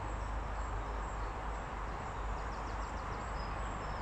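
Steady outdoor background noise with a low rumble, and a small bird giving a quick run of short high chirps past halfway, then a brief high whistle near the end.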